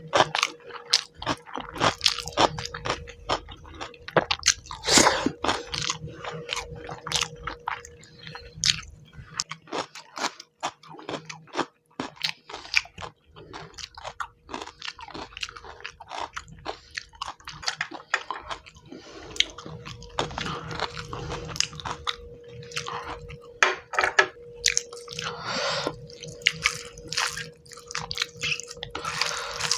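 Close-miked eating: wet chewing and lip smacks of a mouthful of rice and fish curry eaten by hand, with irregular sharp clicks and occasional crunchy bites.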